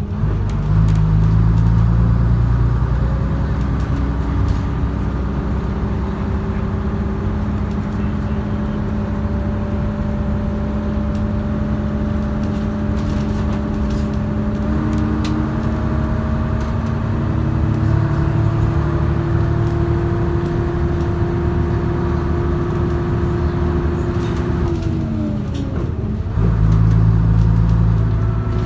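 Leyland Atlantean double-decker bus's rear diesel engine and drivetrain, heard from inside the lower saloon while under way. The engine note rises slowly for most of the time, drops sharply about 25 seconds in at a gear change, then pulls louder and lower. Light rattles from the bodywork come now and then.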